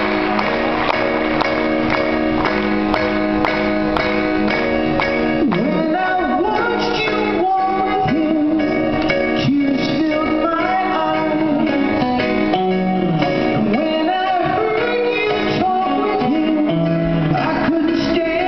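Live band playing a song in a concert hall, with guitars, keyboards and drums holding steady chords over a beat; singing comes in about five seconds in and carries on over the band.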